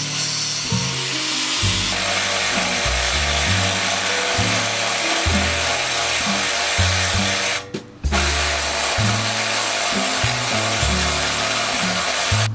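A power tool runs steadily over background music, cutting out briefly about eight seconds in and then carrying on.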